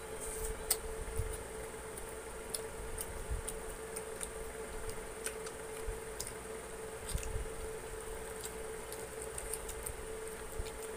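Eating sounds of two people eating fried chicken and rice with their hands: scattered, irregular wet clicks and smacks of chewing, lips and fingers, with a few soft knocks. A steady faint hum lies underneath.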